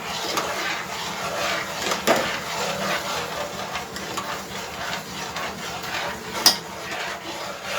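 Kitchen work sounds: a steady hiss with a few sharp knocks, one about two seconds in and a louder one near the end.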